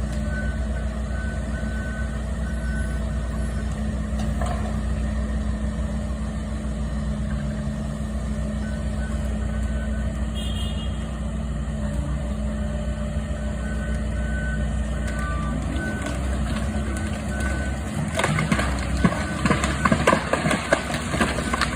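Excavator diesel engine running steadily under load, with its travel alarm beeping in several spells. Near the end a rapid run of sharp cracks and knocks joins in.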